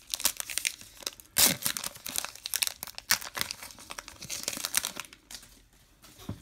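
Wrapper of a Topps Gypsy Queen baseball card pack crinkling as it is torn open and peeled back, with the loudest rip about a second and a half in. The crinkling dies away near the end as the cards are slid out.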